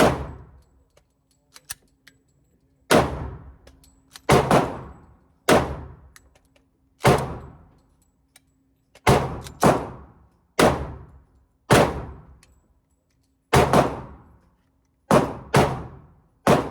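Semi-automatic pistol firing about fourteen shots at an uneven pace, some in quick pairs and others after pauses, with a few faint clicks in a longer pause near the start. The magazine holds spent casings mixed among the live rounds, so the gun stops and has to be cleared between strings of fire.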